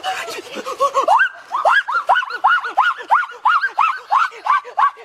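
A duck quacking in a fast, even series of harsh calls, about four a second, starting about a second in: alarm calls from a bird being chased and grabbed.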